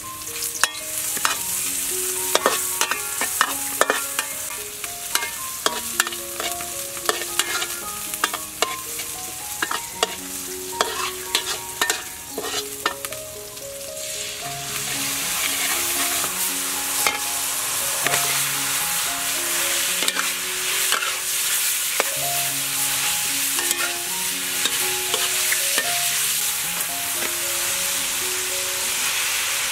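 Metal spatula scraping and clacking against a wok of garlic and green onion frying in hot oil. About halfway through the sizzle turns much louder and denser as fish sauce and shrimp go into the hot wok, and the stirring goes on.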